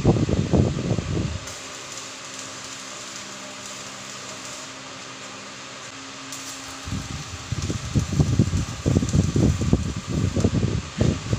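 Electric arc welding on steel caster mounts, an irregular crackle that stops about a second in and starts again about seven seconds in. In between there is only a steady fan-like hum.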